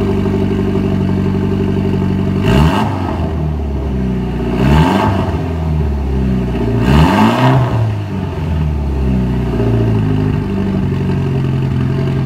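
Mitsubishi Lancer Evolution MR's turbocharged 2.0-litre four-cylinder idling through an ETS V2 Extreme cat-back exhaust shortly after a cold start, blipped three times about two seconds apart, each rev rising and falling straight back to idle.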